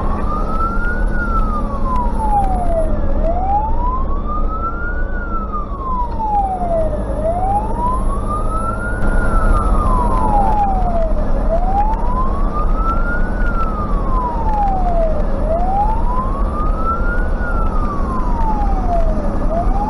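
Fire engine siren on a slow wail, rising and falling about every four seconds, heard from inside a Tatra 148 fire truck's cab under the steady drone of the engine and road noise.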